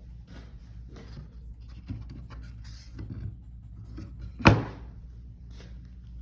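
Light knocks and handling noise with one sharp, louder thunk about four and a half seconds in, over a steady low hum.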